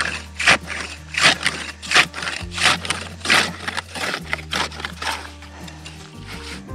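Long-handled ice saw worked up and down through lake ice about eight inches thick, a scraping crunch with each stroke, roughly one stroke every half second to second. Background music with low steady notes underneath.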